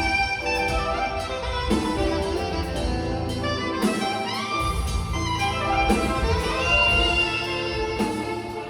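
Two saxophones playing a melody in duet over a live band backing, some notes sliding up into pitch.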